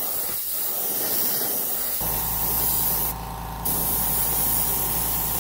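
Airbrush spraying paint onto a lure, a steady airy hiss that breaks off briefly about three seconds in. About two seconds in, a small motor starts a steady hum and keeps running.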